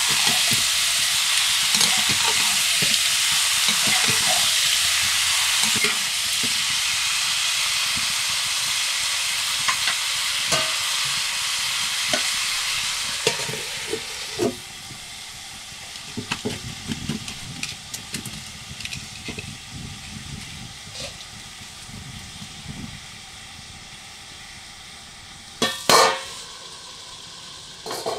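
Raw chicken pieces sizzling in hot oil in a wok while a ladle stirs and scrapes them. About halfway through a steel plate is set over the wok as a lid and the sizzling drops to a quieter, muffled hiss with light knocks. A sharp metal clank comes near the end.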